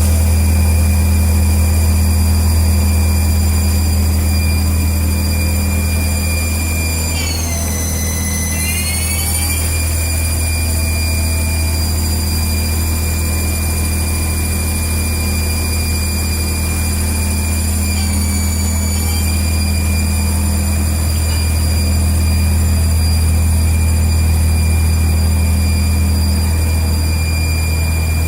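2005 Haas TL-1 CNC lathe running, with a steady low hum under a high electric whine. The whine drops in pitch and climbs back about seven to nine seconds in, and dips slightly again near eighteen seconds.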